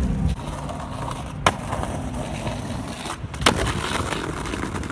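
Skateboard wheels rolling over stone paving, with two sharp clacks of the board striking the ground about two seconds apart.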